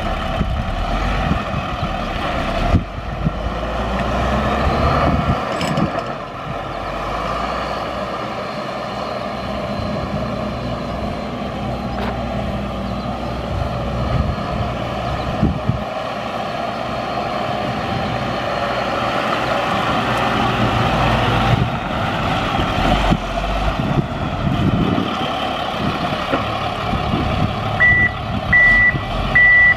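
Medium-duty rollback tow truck running and driving, its engine sound swelling and easing with the throttle. Near the end its reverse alarm starts beeping steadily, about three beeps in two seconds, as it backs up.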